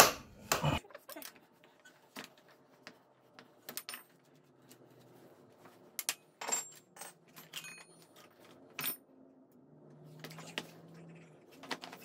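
Scattered sharp metallic clinks and knocks of hand tools and wheel parts: a ring wrench on the front axle nut and set down on the concrete floor, and the front axle being worked out of the wheel hub. The clinks are loudest and closest together in the first second, then come singly every second or two.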